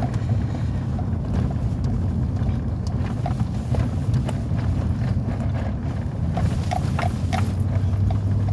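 Truck engine running, a steady low drone, with a few short high clicks about two-thirds of the way through.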